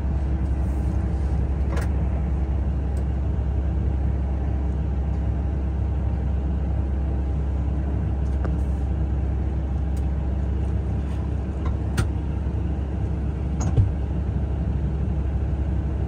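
Tractor engine running steadily, a constant low drone, with a few sharp clicks or knocks, the loudest near the end.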